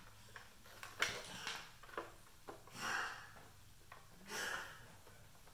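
Handling noise from the plastic housing of a Nellcor N-600x pulse oximeter as it is turned over and its bottom screws are taken out: a few light clicks and two longer soft rustles.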